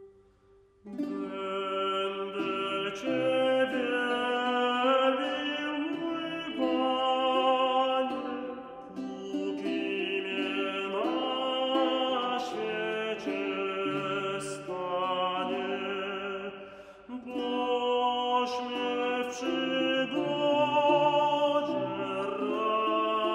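A small vocal ensemble singing a Renaissance four-part psalm setting in Polish, in sustained chordal phrases. The singing starts a little under a second in, after a brief silence, and there is a short breath between phrases about two-thirds of the way through.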